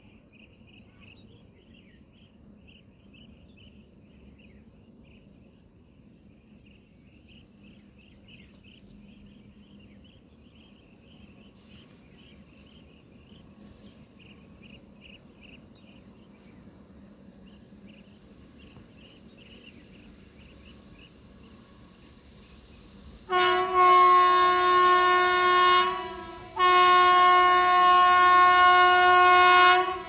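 Horn of a WAG-9 electric locomotive hauling a loaded freight train. Two long, loud blasts come about 23 seconds in, separated by a short break. Before them there is only the faint, slowly growing rumble of the approaching train, with some faint chirping.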